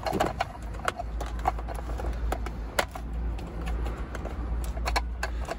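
Irregular plastic clicks and taps as multi-pin wiring connectors are prised out of a car seat control module with a screwdriver, over a low rumble.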